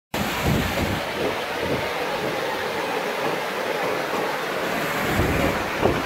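Waterfall rushing: a steady hiss of falling water, with gusts of wind buffeting the microphone several times.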